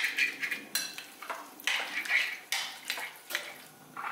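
A metal spoon stirring mushy thawed blueberries with sugar and jam in a glass mixing bowl: repeated clinks of spoon on glass, about one or two a second, with a wet scraping between them.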